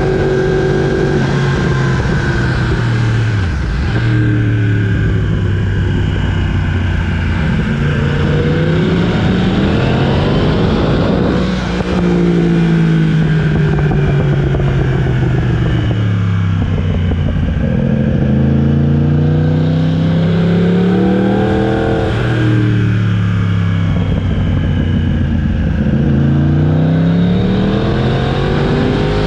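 Yamaha YZF-R1's crossplane inline-four engine under way, its pitch climbing and falling again and again as the bike accelerates through the gears and slows, with brief dips at each gear change.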